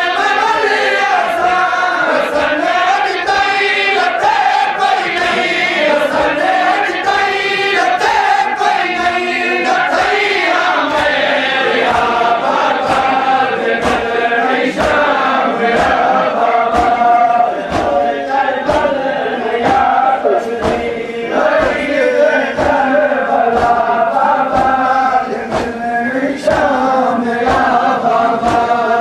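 Men's voices chanting a Seraiki noha, a mourning lament, over a steady beat of chest-beating (matam) slaps from the crowd.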